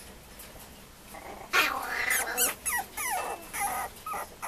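Mame shiba puppy whimpering and yipping: after about a second and a half, a string of short high cries, several falling in pitch.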